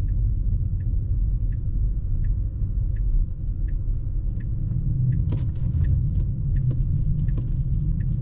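Low road and tyre rumble inside a Tesla's cabin, driving in snow, with the turn signal ticking at an even pace of about three clicks every two seconds. From about five seconds in, sharper irregular clicks join it.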